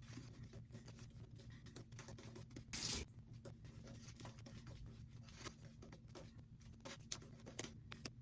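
Ever-Ready shaving brush with a synthetic knot working soap lather: a faint, steady run of small wet scratching and crackling strokes from the bristles, with one brief louder rush of noise about three seconds in.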